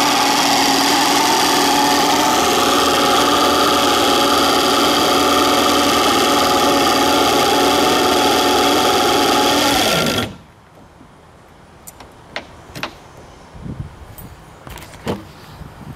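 1976 Mercury 1150 inline-six two-stroke outboard running steadily, with no water coming from its telltale, which the owner puts down to a failed water jacket letting water into the cylinders. About ten seconds in it is shut off and winds down quickly, followed by a few sharp clicks.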